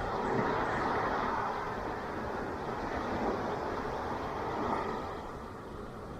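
Ocean waves breaking and washing up a beach, a steady rushing that swells about a second in and slowly eases toward the end.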